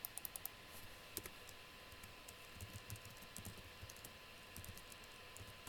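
Faint typing on a computer keyboard: a quick run of keystrokes at the start, then scattered single keys.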